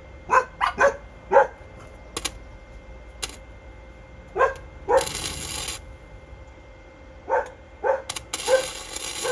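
A dog barking: about nine short, sharp barks in clusters of two or three. Two spells of hissing crackle come in, one about five seconds in and one near the end.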